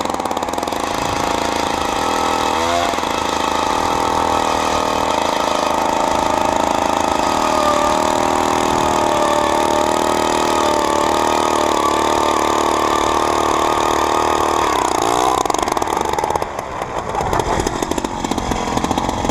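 Gas-engine ice auger running steadily as it bores a hole through the ice. The engine note dips briefly about three seconds in and again near fifteen seconds, then drops and changes about sixteen seconds in.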